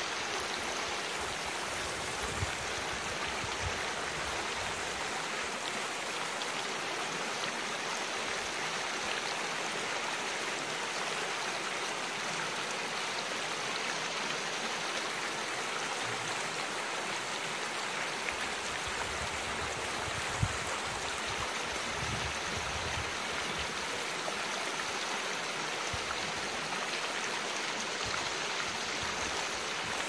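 Shallow mountain stream flowing over rocks: a steady rushing of water that holds even throughout, with one brief tap about twenty seconds in.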